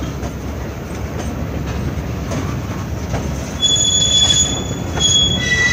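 Freight train cars rolling past with a steady rumble of wheels on rail. A high, steady wheel squeal starts about three and a half seconds in and comes again briefly near the end.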